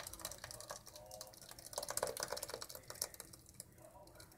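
Thick apple puree pouring from a glass bowl into a stainless steel pot, giving a dense run of small wet clicks and squelches. The clicks are loudest about two seconds in.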